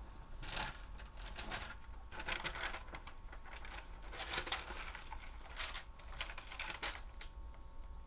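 Typing on a computer keyboard: quick runs of key clicks in several bursts, with short pauses between them.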